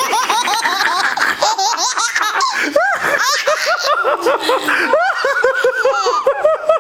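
A baby laughing at a mock sneeze: a long, unbroken run of quick, high-pitched giggles, several a second, with barely a pause for breath.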